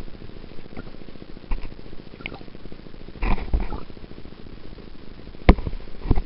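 Underwater recording: a steady low rumble of water with irregular knocks and clicks, the sharpest and loudest about five and a half seconds in.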